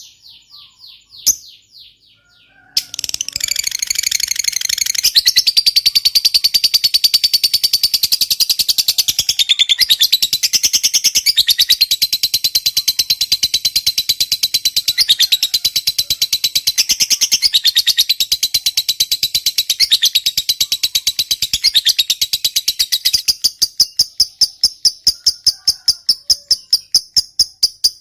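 Lovebird's long 'ngekek' chatter: a few separate high chirps, then about three seconds in an unbroken run of rapid, high repeated notes that keeps going without a pause.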